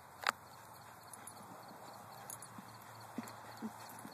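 A dog mouthing and knocking a plastic boat bumper as it lies down with it in the grass: one sharp knock about a quarter second in, then a few soft, low knocks near the end.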